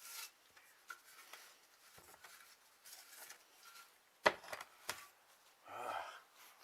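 Quiet handling of tools and parts during wheel-bearing work: scattered light clicks and taps, with two sharper clicks a little past the middle.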